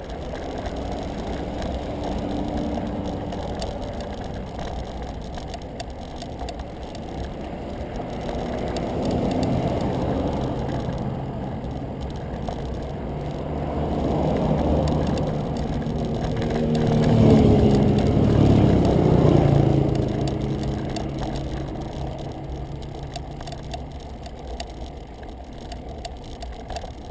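Steady rumble of wind and road noise on a bicycle-mounted camera climbing a paved road. A car approaches and passes, swelling to the loudest point about 17 to 20 seconds in, then fading away.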